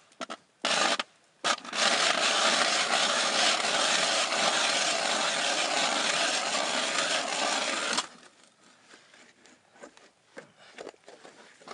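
Hand-cranked ice auger cutting through pond ice, its blades scraping with a steady rasp. After a couple of brief starts it cuts continuously, then stops abruptly about eight seconds in, leaving only faint small clicks.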